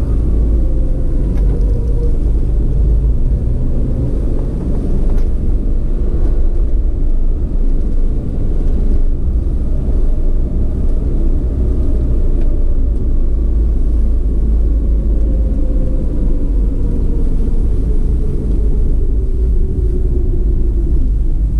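Steady heavy wind rumble on the microphone of a camera moving along a paved road, with road noise underneath. A faint tone slowly rises and falls in pitch.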